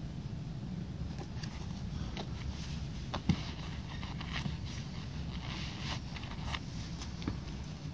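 Cloth rustling and light scrapes as a trouser leg is pulled up off a white leather high-top sneaker, with one sharp knock a little over three seconds in, over a steady low rumble.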